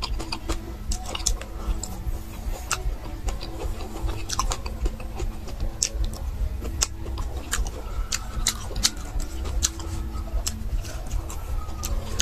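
A person chewing boiled meat off the bone close to the microphone, with many irregular sharp wet mouth clicks and smacks, over a steady low hum.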